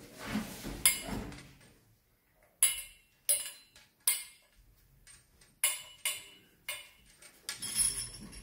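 Sharp metallic clinks and taps, scattered through and bunched near the end, some with a brief ring, as a chrome basin mixer tap and its braided steel flexible hoses are handled.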